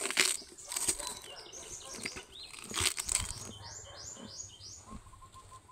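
Scattered crackles and crunches of a calf feeding at close range. A small bird chirps four quick rising notes about four seconds in.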